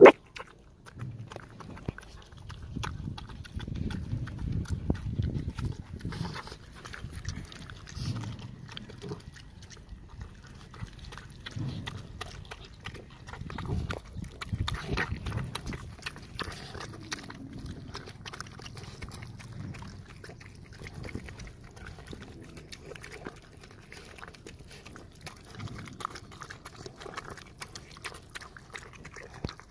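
Two dogs eating cooked rice from a plastic basin at close range: chewing and mouth noises, with a steady run of small clicks. A single sharp knock comes at the very start.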